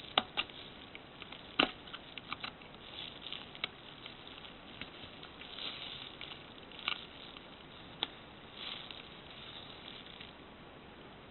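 Small screwdriver clicking and scraping against the plastic end cap of a laser-printer drum unit while prying off the E-ring on the drum axle: scattered faint sharp clicks with short scratchy stretches, which stop about ten seconds in.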